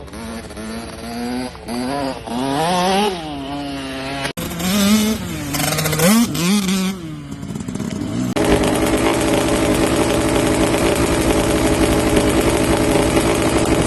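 Kawasaki KX65 dirt bike's 65cc two-stroke single-cylinder engine revved in repeated throttle blips, its pitch rising and falling. About eight seconds in, it changes suddenly to a louder, steady running sound.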